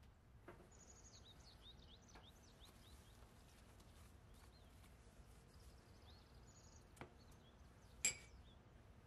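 Near silence with faint bird chirps in the background, a few soft taps, and one sharp clink near the end.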